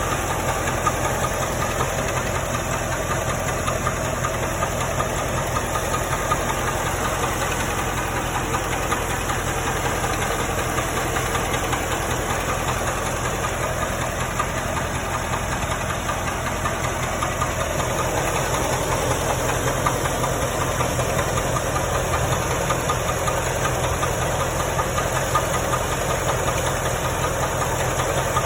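1995 Corvette's V8 engine running steadily with a fast, even knocking noise from the engine, the unidentified noise the owner is asking about.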